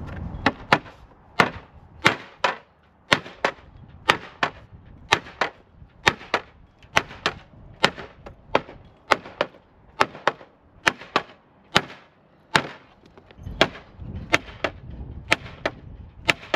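A welded metal part being whacked repeatedly against a block of wood, about two sharp knocks a second, often in pairs, to straighten a slight curve left by the welding.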